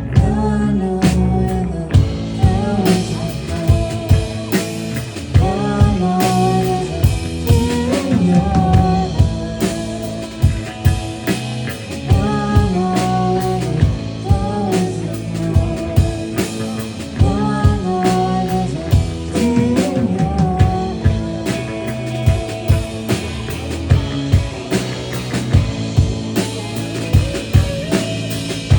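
Dream-pop band music: a drum kit keeps a steady beat under a wavering melodic lead line, in a passage without lyrics.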